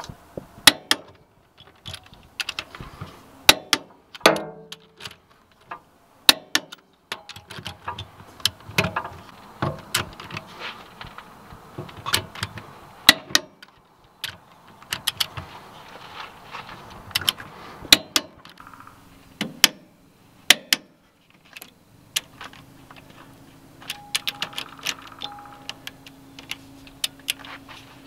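Irregular sharp metallic clicks and clinks of a torque wrench and socket turning the cylinder head bolts on a Kubota D1503 three-cylinder diesel, on a repeat tightening pass after a new head gasket.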